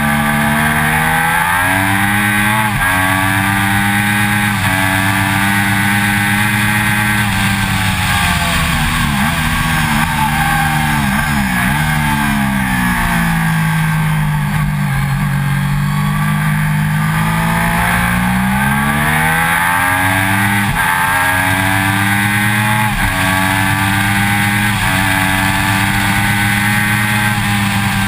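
Triumph Daytona 675's three-cylinder engine at full throttle, climbing through the gears with a sharp drop in pitch at each upshift. About a third of the way in it comes off the throttle and downshifts with quick blips into a corner, runs low for a few seconds, then pulls hard again with several more upshifts near the end.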